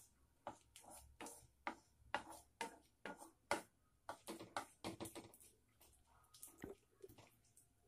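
Faint, irregular popping and crackling, a few pops a second, from whole cumin seeds, a bay leaf and dried red chillies frying in a little hot oil in a kadai.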